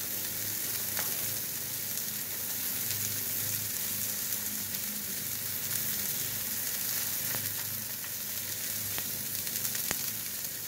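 Two beef burger patties sizzling on a hot steel griddle as their fat renders, a steady frying hiss with scattered small crackles.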